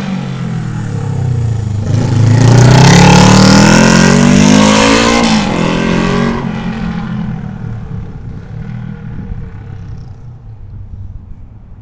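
1977 Honda CJ250 four-stroke parallel-twin engine running with no exhaust silencers: it revs up with a rising pitch, is loudest about two to six seconds in, then drops off sharply and fades away.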